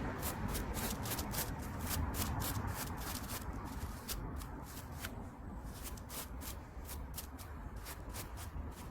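Quick, repeated scratchy scrubbing strokes, about four or five a second, as alternator parts are cleaned by hand.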